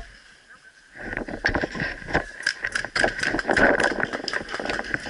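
Quiet for about a second, then rapid, irregular clicks and rattling with a steady hiss behind them.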